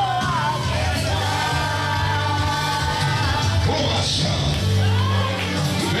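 Music with a steady bass line and a voice singing over it.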